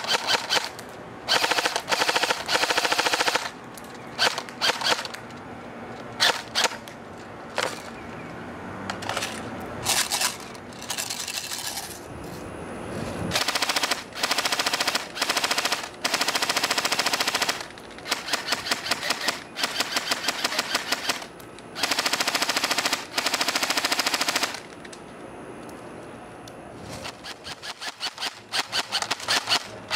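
Lancer Tactical LT-19 Gen 2 M4 Keymod airsoft electric gun firing full-auto bursts, each a rapid chatter of shots lasting up to about two and a half seconds, with short pauses between. Near the end it fires sparser single shots.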